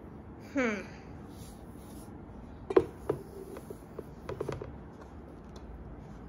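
Metal broom-handle sections being handled and twisted together. A short squeak falls in pitch about half a second in, then sharp clicks and taps come near three seconds and in a quick cluster a little later.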